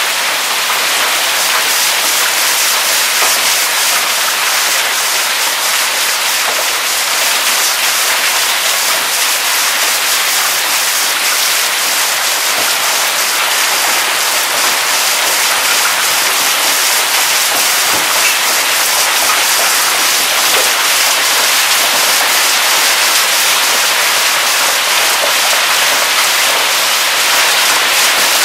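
Heavy hailstorm: large hailstones pelting down in a dense, steady clatter of countless small impacts, at a constant loud level throughout.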